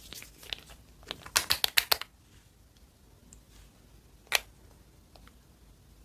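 Slime being pressed and squeezed by hand, giving a quick run of sharp clicks and pops about a second in and one more single pop a couple of seconds later.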